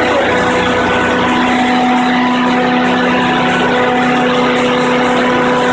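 Biogas-fuelled engine generator running steadily and loud, a constant hum at one unchanging pitch.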